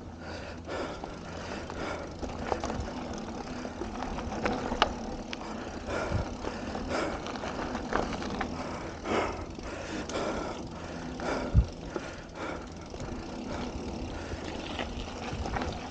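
Mountain bike rolling down a dirt singletrack: steady tyre and trail noise with frequent short knocks and rattles as the bike goes over bumps.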